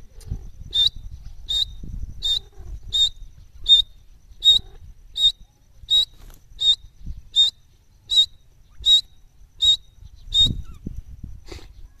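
Grey francolin calling: a long run of short, shrill, high-pitched notes, about one every 0.7 seconds, that stops shortly before the end. A low rumble runs underneath.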